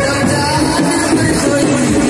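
Loud music playing continuously.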